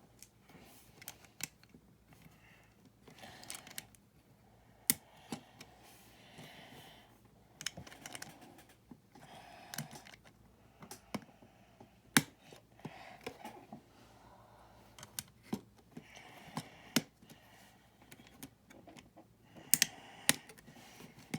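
Plastic building bricks and plates clicking and being pressed together, with irregular sharp clicks and some soft rummaging of loose pieces between them.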